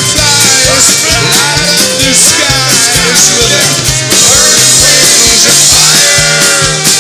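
Loud live rock band: a man singing into the microphone over a steady drum beat and bass.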